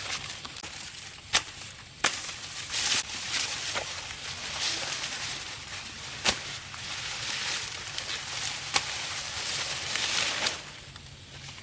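Rustling of plants or leaves being handled, with a few sharp snaps scattered through.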